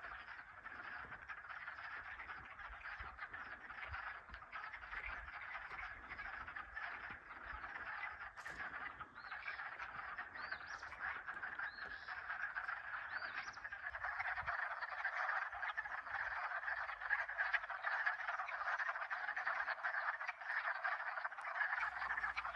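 A dense chorus of many frogs calling together from a pond in early spring, a continuous mass of overlapping croaking calls that slowly grows louder.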